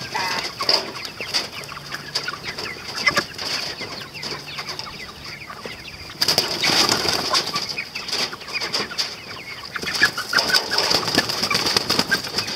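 Cornish Cross broiler chickens clucking and squawking as they are cornered with a hooked catching stick, with scuffling, rustling and wing flapping. The loudest part is a dense flurry of rustling and flapping that starts about six seconds in and lasts a few seconds.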